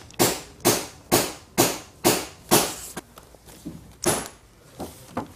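Hanging file folders in a filing cabinet drawer being flipped through one by one, each cardboard folder giving a short swish. About two a second at first, then slower and more spaced out for the rest.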